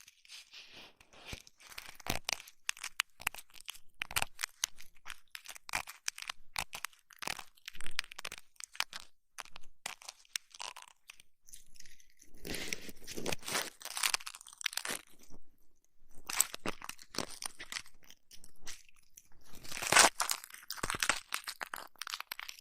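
ASMR ear massage and ear-cleaning sounds on the microphone: dense, crunchy crackling and scratching in uneven clusters. It grows fuller and louder about twelve seconds in, and again near the end.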